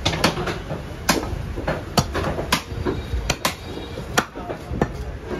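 Large curved butcher's knife chopping beef on a wooden log chopping block: about eight sharp knocks at an irregular pace, over background voices.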